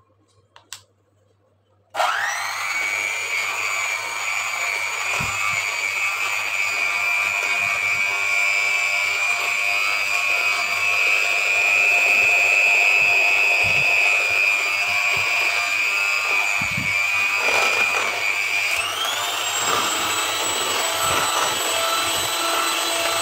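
Electric hand mixer switched on about two seconds in and run at high speed, its beaters whisking runny cake batter in a bowl: a steady motor whine that steps up in pitch near the end.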